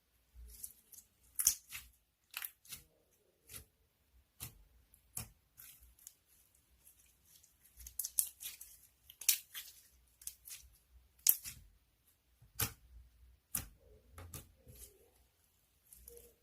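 A run of sharp, irregular clicks and crisp snips, a few each second, some much louder than others.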